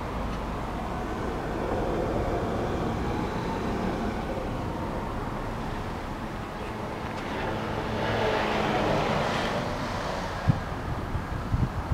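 Steady vehicle and road noise, swelling for a couple of seconds about eight seconds in, with a few sharp knocks near the end.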